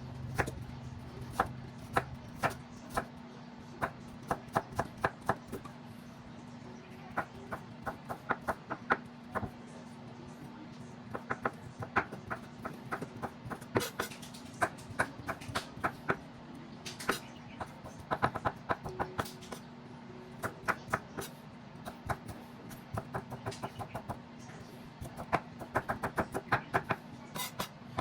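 Kitchen knife chopping on a cutting board: uneven strokes, sometimes in quick runs of several a second, over a steady low hum.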